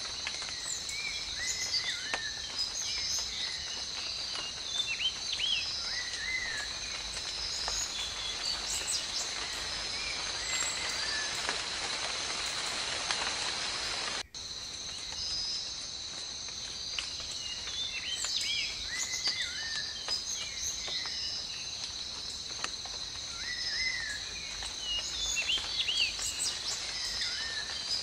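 Forest ambience: a steady high-pitched insect drone with many short bird chirps and calls over it. The sound cuts out for a moment about halfway through.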